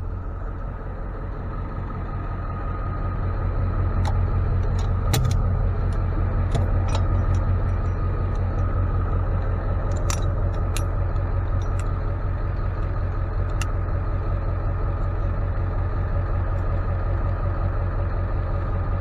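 Tow truck cab interior while driving: a steady low engine and road rumble that grows louder a few seconds in as the truck picks up speed, with several sharp clicks and rattles in the first half.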